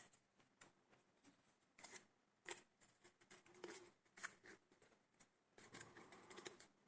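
Faint handling noise of small laptop RAM modules: scattered light clicks and soft rustles, a few clearer ticks in the middle and a brief rustle near the end.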